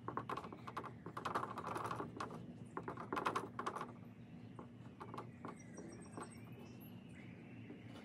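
Dry-erase marker stroking across a whiteboard: quick scratching, tapping strokes of the felt tip, dense for the first half, then fewer and lighter.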